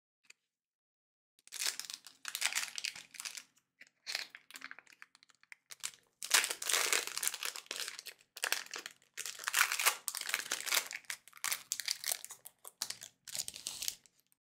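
Foil wrapper of a Pokémon Shining Fates booster pack crinkling and tearing as gloved hands work it open, in irregular bursts starting about a second and a half in, with the cards slid out of the torn pack near the end.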